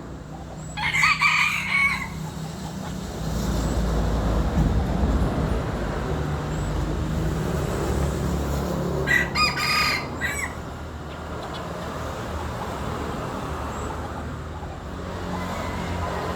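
A junglefowl rooster crowing twice, each crow a little over a second long and several seconds apart, over a steady low rumble.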